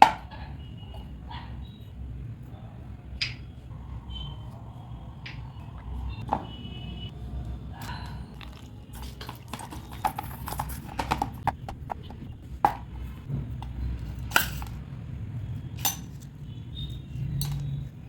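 Kitchen utensils and dishes knocking and clicking at irregular intervals, with a quick run of taps and clicks in the middle, over a steady low hum.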